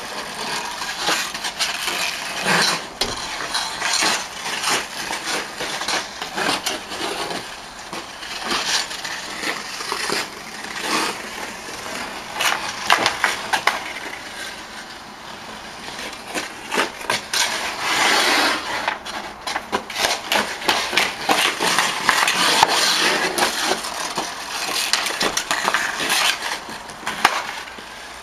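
Ice skate blades scraping and carving across rink ice, with frequent sharp clacks of a hockey stick working a puck on the ice.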